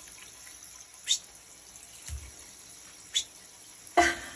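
Hands lathering shampoo into a small wet dog's fur in a bathtub, with two brief high, falling squeaks about two seconds apart and a soft low thump between them. A louder voice-like sound starts near the end.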